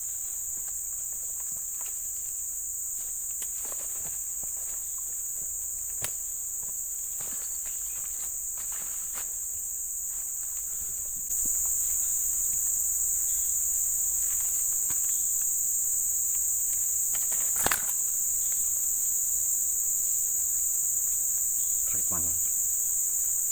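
Steady shrill insect chorus that jumps louder about halfway through. A few faint clicks and one sharper knock sound near the end.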